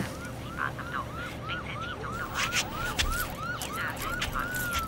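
Siren yelping, a fast rising-and-falling wail about three times a second, that changes to one long falling tone near the end.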